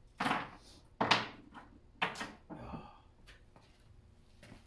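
Three sharp clunks of hard objects being handled and set down, about a second apart, followed by a short squeak.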